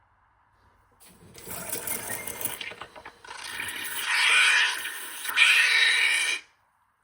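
Klarstein GrandPresso Touch espresso machine running: a mechanical rattle with hissing, in two stretches with a short dip about three seconds in, the second louder, cutting off abruptly near the end.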